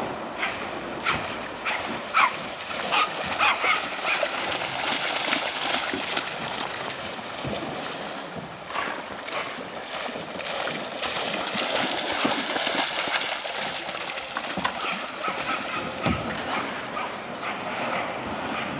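Appenzeller Sennenhund splashing as it runs through a shallow river, over the steady rush of flowing water. The dog barks a run of times in the first few seconds, with scattered barks later.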